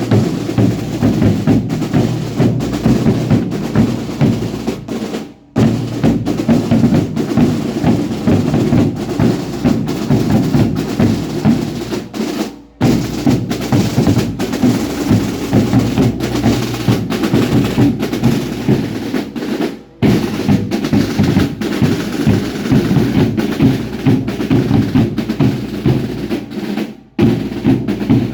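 Drums of a baile indio dance troupe beating a fast, dense rhythm, breaking off briefly about every seven seconds before starting again.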